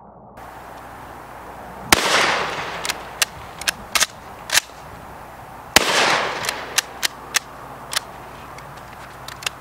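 A Smith & Wesson 916A 12-gauge pump-action shotgun fires twice, about four seconds apart, each shot echoing away over about a second. Between and after the shots come several sharp mechanical clacks, the pump action being worked.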